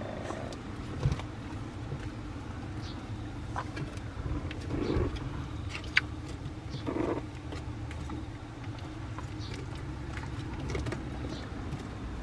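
Shiba puppies a few weeks old shuffling about on a wooden plank floor. There is a sharp tap about a second in and another about six seconds in, and two short low grunts around five and seven seconds, over a steady low hum.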